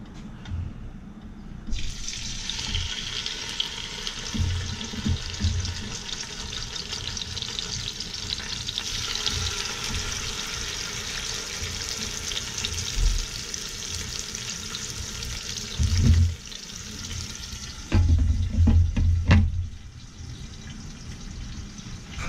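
Two seasoned trout sizzling in a hot oiled pot: a steady frying hiss that starts suddenly about two seconds in as the fish go in, with a few dull knocks of the pot and its lid near the end.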